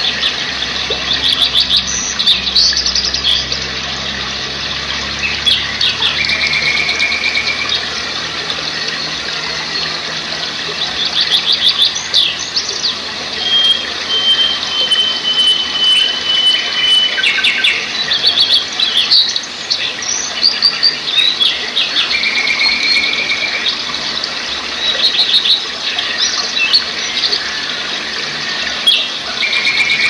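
Rocky mountain stream rushing over boulders, a steady hiss of water, with songbirds calling over it: repeated chirps and quick trills, and one long high whistle held for a few seconds midway.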